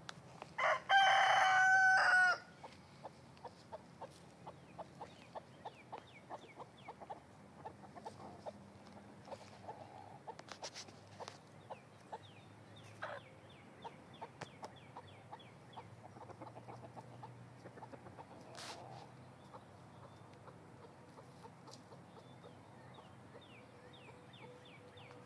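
A rooster crows once, loudly, about a second in. After it, hens cluck softly in quick short notes.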